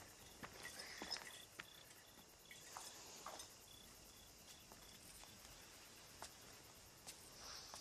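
Faint night ambience of crickets chirping in a steady pulse, with scattered soft clicks.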